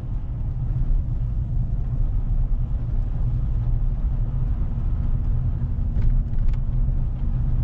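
Steady low rumble of a Chevrolet Silverado pickup driving slowly on snowy streets, its engine and road noise heard from inside the cab.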